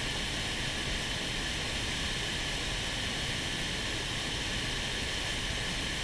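Swollen mountain river rushing steadily in spate: an even, unbroken hiss of fast white water.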